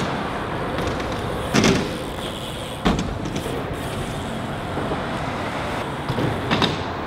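Steady traffic noise from the highway overhead, with a few sharp knocks of BMX bikes landing and riding on wooden ramps: about a second and a half, three seconds and six and a half seconds in.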